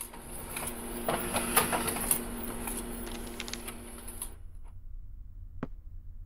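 Office laser printer running as it prints, a steady mechanical hum and whine with rapid clicks of the paper feed, stopping abruptly about four seconds in. A single sharp tap follows shortly before the end.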